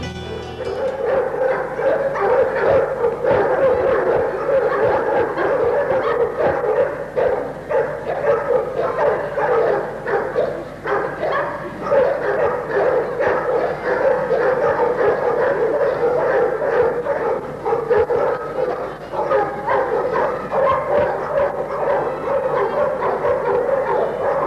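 A dog barking rapidly and without let-up: a protection dog held back by its handler, barking at an approaching decoy in bite-work training.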